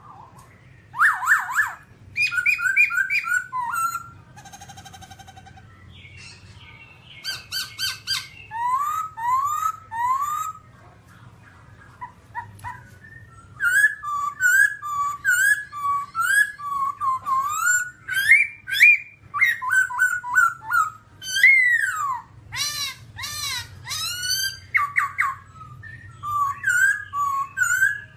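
Black-throated laughingthrush singing a loud, varied song of clear whistled notes, phrases of quick rising and falling glides, some repeated several times over. A short buzzy, rattling note sounds about five seconds in, and the song pauses briefly around twelve seconds before picking up again.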